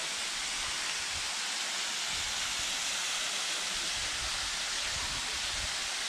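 Steady hiss of a waterfall, water spilling in thin streams down a mossy rock face into a pool. A low rumble comes and goes through the second half.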